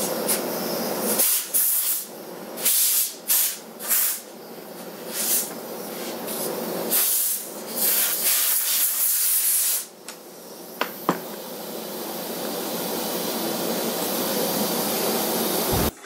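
Compressed-air blow gun blasting dust out of refrigerator condenser coils in short hissing bursts of varying length, about a dozen of them, with one longer blast running from about seven to ten seconds in. Under the bursts is a steady machine noise that grows gradually louder and stops just before the end.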